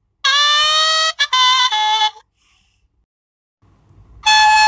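A children's sound book's small speaker playing a short recorded saxophone riff with sliding, bending notes, which stops about two seconds in. After a pause a recorded harmonica tune starts near the end, set off by pressing the book's sound button.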